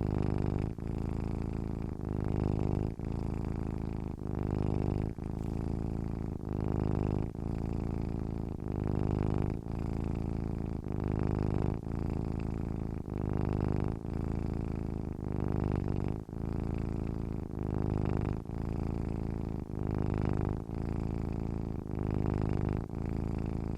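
Domestic cat purring: a deep, continuous rumbling hum that swells and dips in a steady rhythm about once a second.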